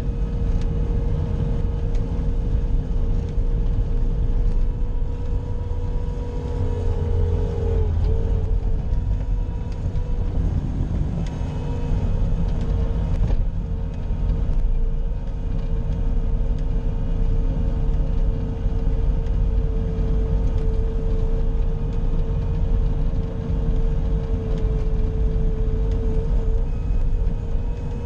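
Bobcat skid-steer loader's engine running steadily under work, a low rumble with a steady whine above it that dips briefly about eight seconds in.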